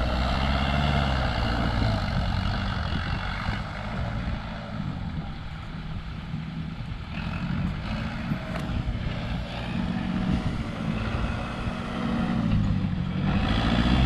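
Kubota tractor's diesel engine running under load, its pitch dipping and rising a few times, a little quieter through the middle and louder again near the end.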